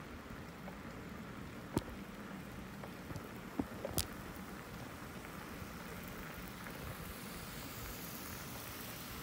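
Steady rushing rumble of bicycle tyres rolling over a concrete street, with three sharp clicks about two, three and a half and four seconds in.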